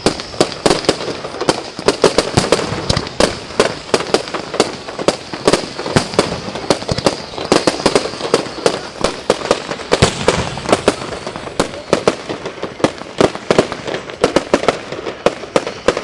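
Fireworks display going off in a dense barrage: sharp bangs and reports from bursting shells, several a second, with no let-up.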